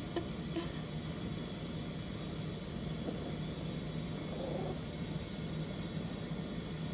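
Tabby cat purring steadily in a low rumble while being stroked and massaged, a sign that it is content.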